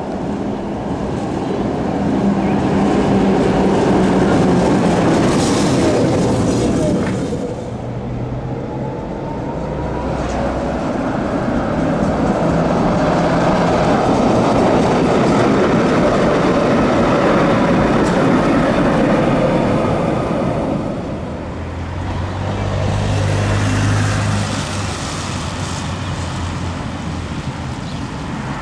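Electric trams running over street track in a string of short shots: wheel-on-rail rumble, with an electric traction-motor whine that glides in pitch, rising about ten seconds in.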